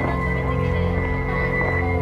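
Music with long, steady held notes over a sustained low bed.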